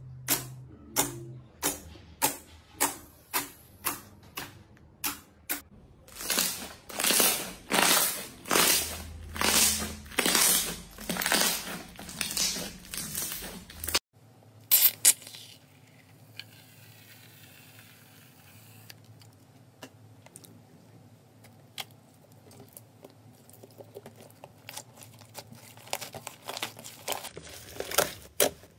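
Fingers pressing into thick, glossy slime, squeezing out a run of crisp pops about twice a second that turn into longer wet squishes. About halfway the sound drops to a faint crackle of slime, and near the end quick pokes and pops start again.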